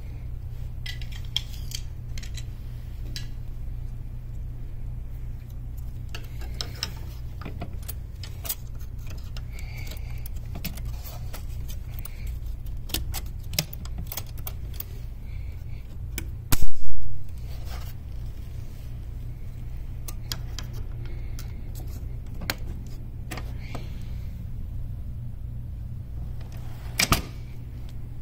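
Scattered metal clicks and clinks from a La-Z-Boy recliner's steel side mechanism as its three-position clips are worked off and on by hand, over a steady low hum. One much louder, brief clank comes about two-thirds of the way through.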